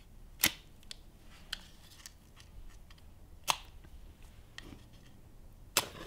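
Wooden match struck against the side of a matchbox: three sharp short scratches a few seconds apart, with fainter ticks between, the last one near the end catching into flame.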